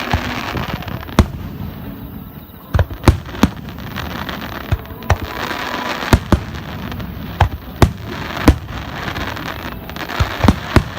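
Fireworks display: about a dozen aerial shell bursts go off as sharp bangs at irregular intervals, several in quick pairs, over a continuous noisy background between them.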